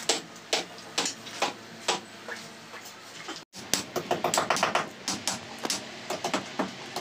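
Hammer blows chipping at a concrete hollow-block wall, about two strikes a second. After a brief break they become quicker taps of hammer on chisel along the edge of the opening, about four or five a second.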